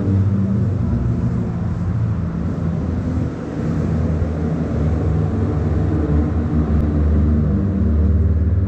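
Racing Citroën 2CV air-cooled flat-twin engines running, a steady low drone whose pitch slowly shifts.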